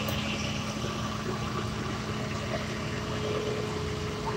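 Flatbed tow truck's engine idling steadily, a constant low hum.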